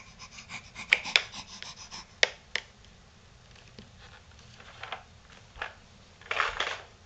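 Hard plastic shapes clicking, knocking and scraping against a plastic toy-blender shape sorter as a baby handles them. There is a quick run of clicks and knocks in the first two and a half seconds, scattered taps after that, and a short scraping rattle near the end.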